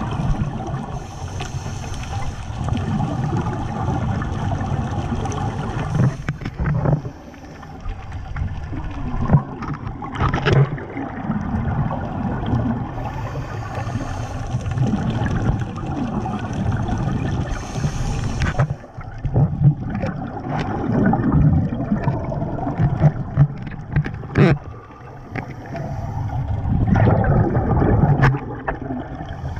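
Scuba divers' regulator exhaust bubbles gurgling up past an underwater camera housing, swelling in surges every several seconds over a constant muffled low rumble.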